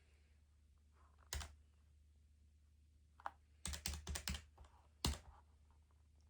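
Keys being pressed, clicking: a single press, another about two seconds later, a quick run of about five, then one last sharper press, over a faint steady low hum.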